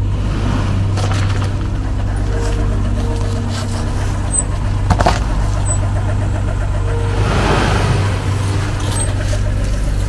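Suzuki Gypsy jeep's engine running steadily as it drives slowly over bare rock, swelling louder for about a second around seven seconds in. A short sharp click comes near the middle.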